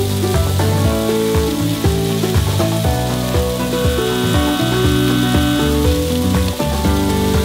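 Entrecôte steaks sizzling as they sear on the hot pan base of a RATIONAL VarioCookingCenter, a steady frying hiss, under background music with held notes that change every second or so.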